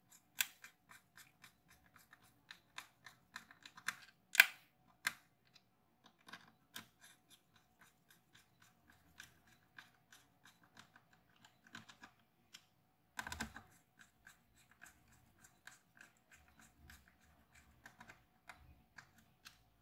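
Small screwdriver fastening the screws of a laptop's CPU heatsink: a run of faint, irregular clicks and ticks, with a sharper click about four seconds in and a short scraping cluster around thirteen seconds.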